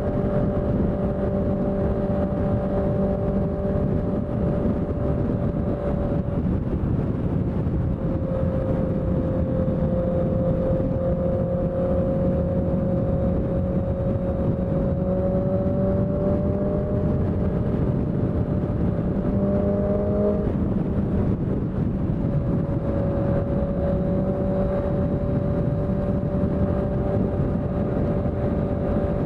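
Honda CBR650F inline-four with a CS Racing aftermarket exhaust, running at a nearly steady engine speed. The pitch drifts gently, rises briefly about twenty seconds in, then settles back.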